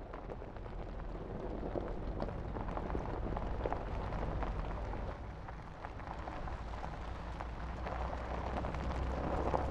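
Mercedes-Benz GLE SUV driving slowly over loose rock and gravel: stones crackling and crunching under the tyres over a low engine hum, getting louder as it comes closer over the first few seconds.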